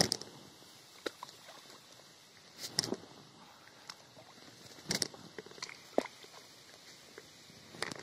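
Balls of groundbait thrown by hand from a boat, landing in the water with short splashes, mixed with knocks of handling in the boat: about five brief sounds a second or two apart.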